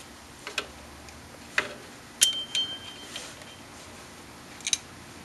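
Sharp metallic clicks and clinks of a tool working a small retention clip out of a rear drum brake assembly: about five ticks spread over a few seconds. The loudest comes about two seconds in and leaves a brief ringing tone.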